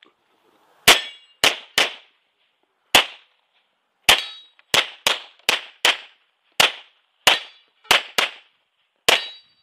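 Tanfoglio Limited Custom Extreme pistol in .40 S&W firing fourteen shots, several of them in quick pairs about a third of a second apart, with short pauses between strings.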